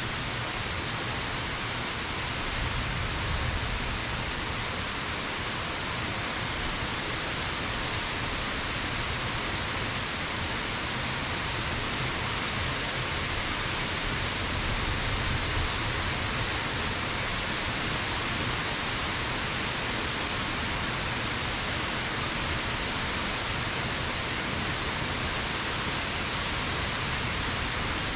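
Steady rain falling: an even, unbroken hiss with a low rumble underneath.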